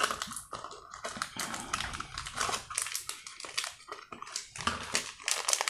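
A small paper packet being torn open by hand and the plastic bag inside crinkling: irregular crackles and rustles.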